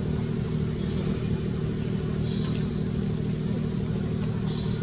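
A steady low engine hum, with a thin steady high whine over it and brief high hisses about every second and a half.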